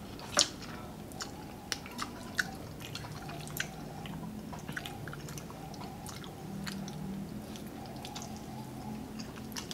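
Close-up eating sounds: people chewing and slurping carbonara spaghetti, with many short wet mouth clicks scattered throughout, over a faint steady hum.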